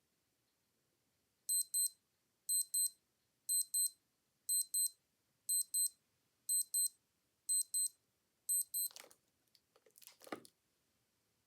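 Digital watch alarm beeping: a high, thin double beep repeated about once a second, eight times, then it stops. A few soft rustling knocks follow near the end.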